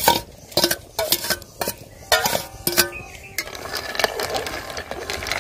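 A steel spoon clinking and scraping against a hammered steel bowl as mushrooms are pushed off it into a pot of broth: a quick series of sharp metal knocks in the first three seconds.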